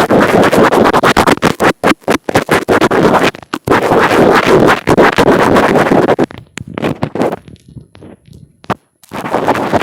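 Fingers rubbing and scratching directly on an earphone microphone, a loud, dense crackling scrape with brief pauses. About six seconds in it thins to scattered light scratches and nearly stops, then the dense rubbing starts again near the end.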